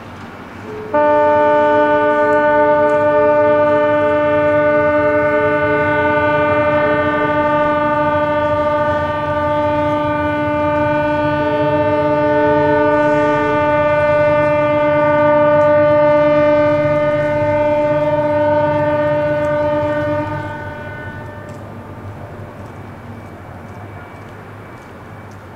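Ship horns blowing in salute to a newly launched ship. One long, steady, loud blast starts about a second in and holds for some twenty seconds, while a second, higher horn sounds on and off beside it. The horns stop near the end, leaving quieter harbour background noise.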